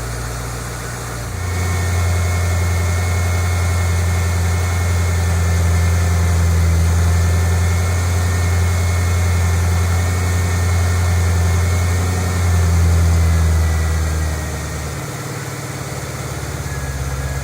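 Ford Mustang GT's 4.6-litre three-valve V8 running at idle. About a second in its speed steps up to a louder, steady raised idle, which settles back down near the end.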